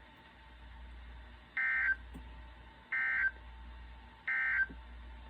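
Emergency Alert System end-of-message code: three short bursts of warbling digital data tones, each about a third of a second long and spaced about a second and a half apart, signalling the end of the severe thunderstorm warning. A faint steady hum sits underneath.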